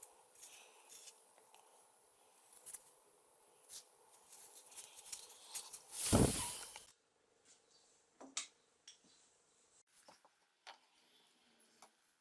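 Quiet handling noises: scattered small clicks and light scrapes, with one brief louder rushing noise about six seconds in.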